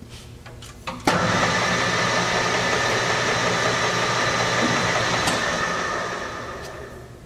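DoAll Romi 13-5 geared-head engine lathe starting up after a few clicks: the spindle and three-jaw chuck come up to speed abruptly and run steadily with a whine from the headstock. Near the end the sound fades as the spindle coasts to a stop.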